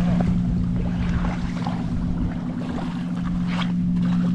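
Motorboat engine running with a steady low hum.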